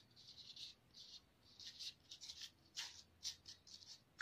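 Glossy photocards sliding against one another and over a wooden tabletop as a hand spreads them: a string of faint, short swishes with a couple of light clicks.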